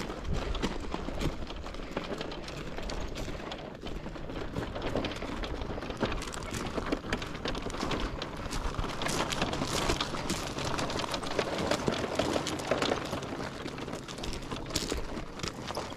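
Wagon wheels rolling over loose gravel, mixed with the footsteps of a person and a sheep on the gravel: a continuous crunching made of many small clicks.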